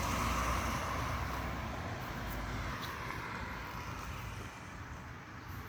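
A vehicle going past, its steady rumble and road noise slowly fading away.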